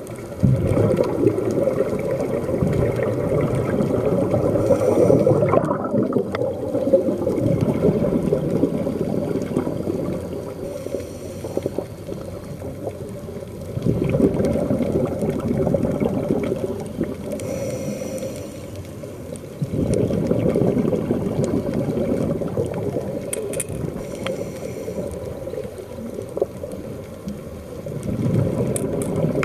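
Muffled water rushing and bubbling, recorded underwater by an action camera inside its waterproof case, with almost nothing above the low range. It rises and falls in level every several seconds.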